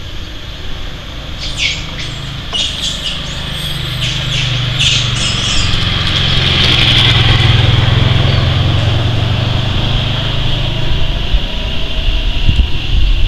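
Outdoor ambience: a low rumble that swells to a peak midway and fades again, over a steady high-pitched hum. There are a few short, sharp chirps in the first few seconds.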